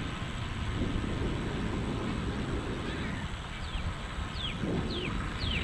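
Steady wind rumble on the microphone with tyre hum from a bicycle rolling along pavement. In the second half a bird gives five quick falling whistles, about two a second.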